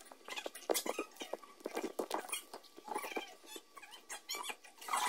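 Time-lapse sped-up class audio: voices and studio sounds turned into a rapid, high-pitched chatter of squeaks and clicks.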